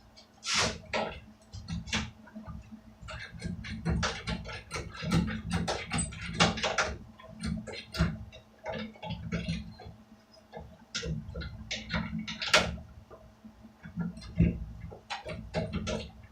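Irregular clicks, knocks and scrapes of hand tools being handled and worked on a wooden workbench.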